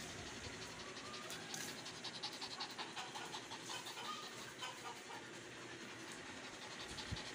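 Shih Tzu panting, faint, quick and rhythmic.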